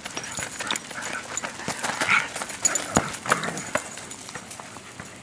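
Dogs making short excited vocal sounds while playing with a ball, with quick knocks and scuffs throughout and one sharper thump about three seconds in.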